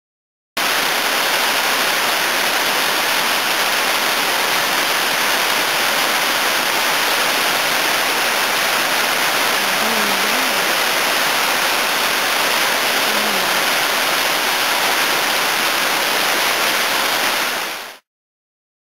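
Waterfall pouring down a stepped limestone cascade: a loud, steady rush of falling water that cuts in about half a second in and fades out just before the end.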